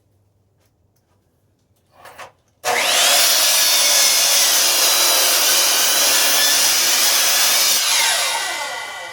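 A 10-inch compound miter saw starting abruptly a little under three seconds in, its motor spinning up and running at full speed as the blade cuts through a piece of firewood. Near the end it is switched off and the motor whines down in pitch as the blade coasts to a stop. Just before it starts there are a couple of brief knocks.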